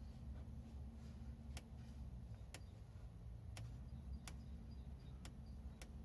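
Faint small sharp ticks, about six, irregularly spaced, as an electric soldering iron works along a crack in a plastic bumper, melting the plastic, over a low steady hum.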